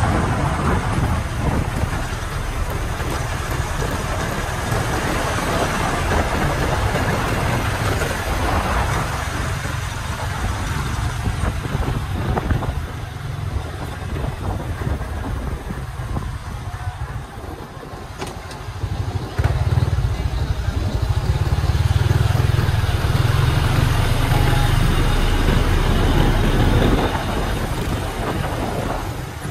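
Engine and road noise from riding alongside a Hyundai crane truck: a steady, loud mix of engines and rolling tyres, with a low rumble that grows louder about two-thirds of the way through.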